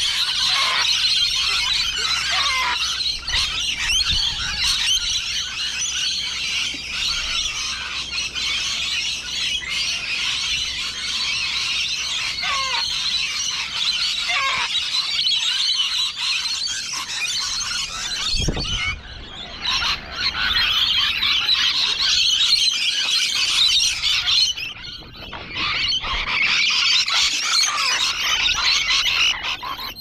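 A flock of rainbow lorikeets and sulphur-crested cockatoos screeching and chattering at a feeding bowl, a dense, continuous, high-pitched din that thins out briefly twice in the second half.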